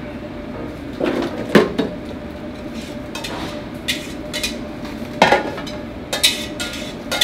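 Chopped vegetables dumped from an aluminium pot into a stainless steel hotel pan, with several sharp metal clanks of pot and pan, the loudest about a second and a half in and again about five seconds in.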